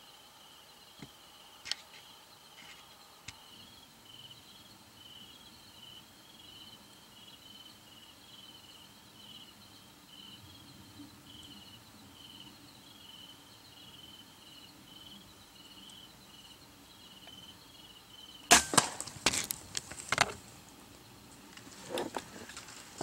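TenPoint crossbow shot about three-quarters of the way in: one sudden sharp crack, followed over the next two seconds and again near the end by more sharp knocks and crashing as the deer bolt. Before the shot, an insect chirps faintly in regular pulses.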